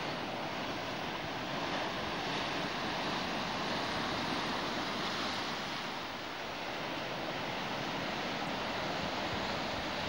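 Rough sea surf breaking and washing over rocks and a pebble shore, a steady rushing of water.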